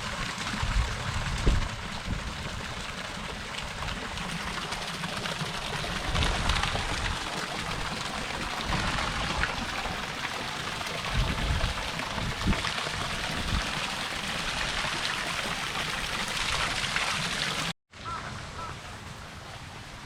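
Wind buffeting the microphone in low gusts over a steady outdoor hiss, with the sound dropping out for a moment near the end.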